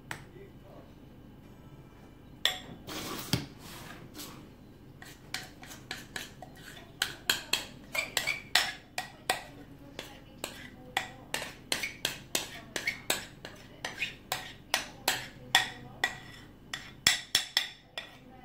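Metal spoon scraping and tapping against a ceramic mixing bowl as thick cake batter is spooned out: a rapid run of clinks, several a second, starting about two seconds in.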